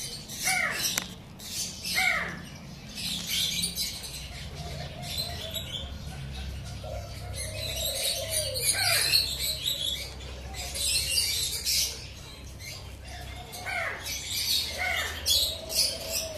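Many captive birds calling together: loud squawks that drop sharply in pitch recur every few seconds, with some longer, drawn-out calls and a constant high twittering of smaller birds.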